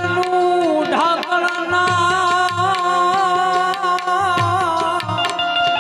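Gujarati folk devotional music: a long held melody line, wavering in pitch, over regular tabla-style drum beats.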